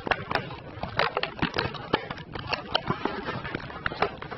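Irregular clicks, taps and rustles of a cube's box and packaging being handled and opened.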